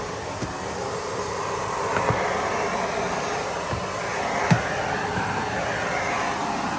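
Miele Blizzard CX1 bagless vacuum cleaner running steadily as its floor head is pushed and pivoted over the floor, with a couple of light knocks from the head, one about two seconds in and a sharper one a little past the middle.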